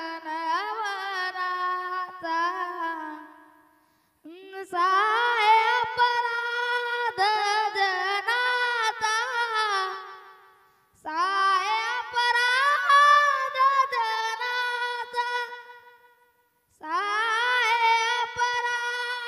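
A boy singing a Marathi devotional song solo and unaccompanied in a high, clear voice, drawing out long ornamented phrases with wavering, gliding pitch. He breaks for breath three times between phrases.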